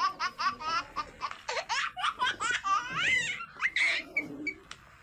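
A baby laughing hard in quick repeated high-pitched bursts, about four or five a second, thinning out to a few short sounds about three and a half seconds in.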